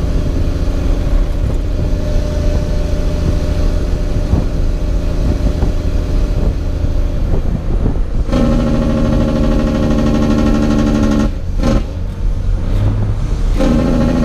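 Semi truck's diesel engine heard from inside the cab, running steadily, then about eight seconds in turning to a much louder, strong drone. Near the end the drone drops out twice briefly as the 18-speed manual transmission is shifted, and picks up again.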